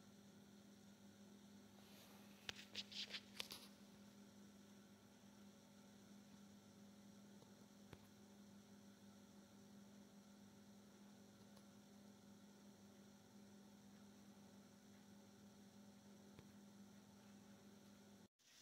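Faint, steady electrical hum, with a brief cluster of sharp clicks about three seconds in.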